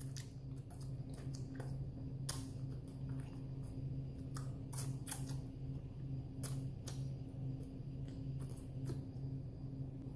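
Scattered faint mouth clicks and lip smacks at irregular intervals from a person with a burning mouth, over a steady low hum.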